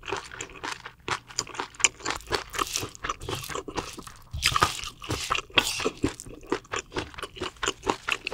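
A person chewing crunchy food close to the microphone: a quick, wet run of crunches, several a second.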